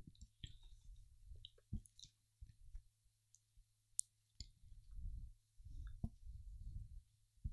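Faint handling noise as chant books are turned to page 150: scattered light clicks and soft low thumps close to the microphone, over a faint steady hum.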